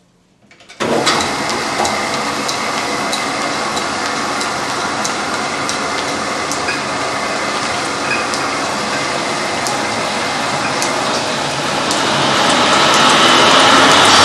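Overhead belt-driven line-shaft transmission and the automatic lathes it drives, switched on about a second in: a sudden start into a loud, steady mechanical running noise of belts, pulleys and machinery, with scattered clicks, growing louder near the end.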